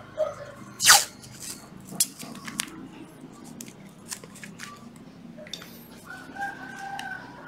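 Clicks and knocks of a plastic cordless drill being picked up and handled, the loudest about a second in. Near the end a rooster crows once, a held call of about a second and a half.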